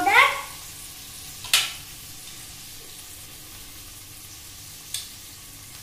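Sweet corn kernels sizzling in butter in a stainless steel frying pan, a steady hiss. A spoon stirs and knocks against the pan about one and a half seconds in and again near five seconds, after a short louder sound right at the start.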